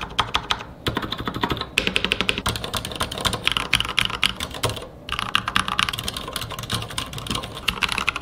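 Fast typing on mechanical keyboards, moving between a stock, unlubricated board and a fully lubed Mars Pro with speed silver linear switches, with a few brief pauses. On the stock board the switch springs ping with each press; the lubed board sounds clean, without spring noise.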